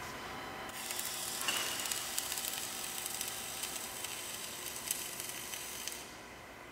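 MIG welding arc on steel, a steady crackling sizzle with spitting spatter that starts under a second in and cuts off about a second before the end.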